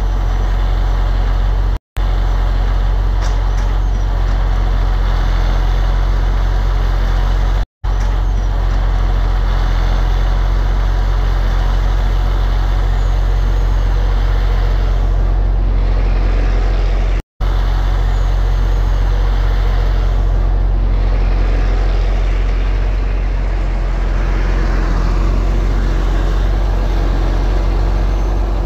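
Log truck's diesel engine running steadily with a deep low rumble. The sound cuts out for a moment three times.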